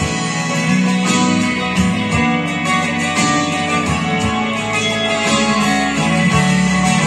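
Electric guitar being played: picked notes and strummed chords, with held low bass notes underneath.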